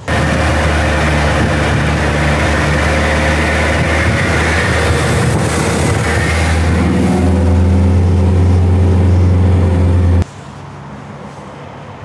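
Camper van engine running on the move, with road and wind noise over it. The engine note shifts up and gets louder about seven seconds in, and the sound cuts off abruptly near the end.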